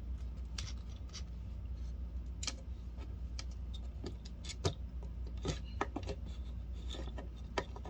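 Scattered light clicks and taps of a Speakon connector, its wires and a soldering tool being handled while soldering the terminals, over a steady low hum.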